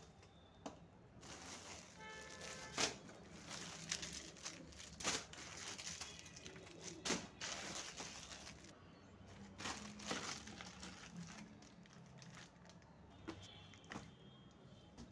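Plastic packaging crinkling and rustling as hands rummage through a cardboard box of shrink-wrapped parcels, with irregular sharper crackles and the odd knock against the cardboard.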